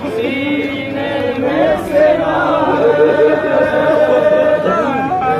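A group of men's voices chanting a nauha, a Shia mourning lament, together, holding long notes that bend in pitch.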